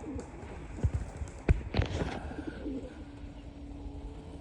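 Homing pigeons cooing low and soft, with two sharp taps about a second and a second and a half in.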